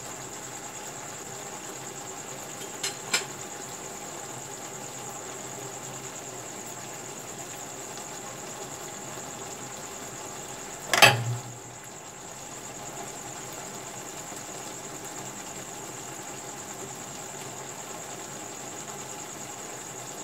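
Pepper chicken simmering in a yoghurt-and-pepper sauce in a non-stick frying pan, a steady low sizzle as the liquid cooks off. Two light clicks come about three seconds in and a louder knock about eleven seconds in, over a thin, constant high-pitched tone.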